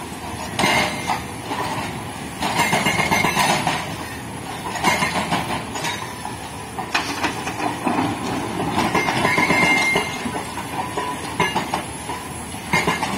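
Hydraulic rock breaker on a Sany SY210C-9 excavator hammering rock in repeated bursts of rapid blows with short pauses between them, over the steady running of the excavator's diesel engine.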